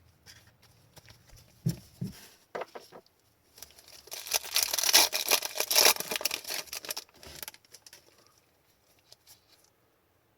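Foil wrapper of a hockey card pack rustling, tearing and crinkling in the hands for about four seconds, a few seconds in, after some softer handling sounds.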